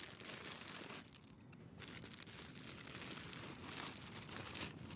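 Plastic packaging crinkling and rustling as clothes are pulled out of a duffel bag, with a quieter moment about a second in.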